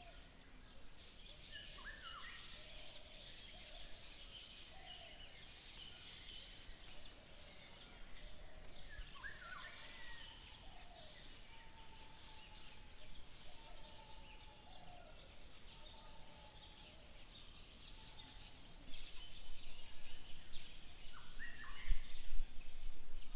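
Tropical forest ambience: a dense high chirping chorus with scattered bird calls, some short sweeping notes and a held whistle-like note. Near the end it gets louder, with low rumbles and thumps.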